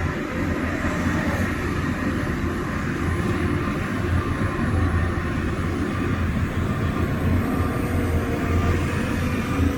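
Heavy diesel earth-moving machinery running steadily under load: a continuous low engine rumble with faint steady whining tones above it.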